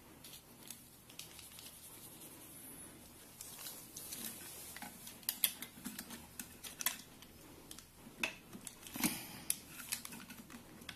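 Irregular small plastic clicks and handling noises as ink dampers and their plastic tubes are pushed into place on a printer's printhead, the clicks coming more often and louder in the second half.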